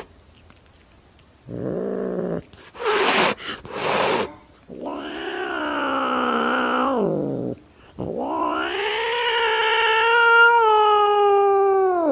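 Cat yowling: a few short calls, then two long drawn-out yowls, the second held at a steady pitch for about four seconds.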